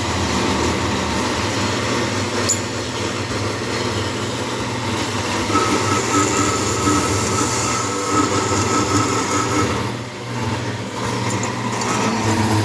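Automatic burr-free metal cutting machine (400BC) running with a steady motor hum and a metallic grinding noise. From about five to ten seconds in, a thin, steady high-pitched squeal rides over it as the cut goes through.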